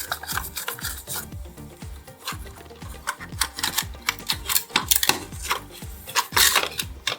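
Repeated rasping strokes of abrasive hand work on a diecast model car, over background music with a steady beat.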